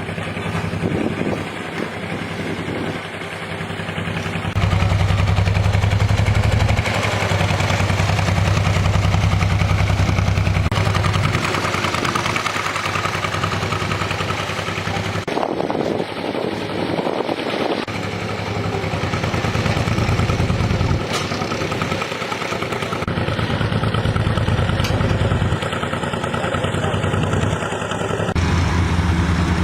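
Engines of road-repair machinery and vehicles running, a steady low hum that swells and drops every few seconds.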